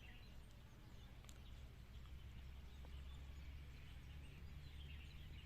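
Near silence: faint outdoor ambience with a low steady rumble and a couple of faint ticks.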